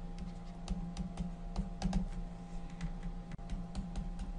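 Light, irregular clicks and taps of a pen stylus writing on a tablet surface, over a steady low electrical hum.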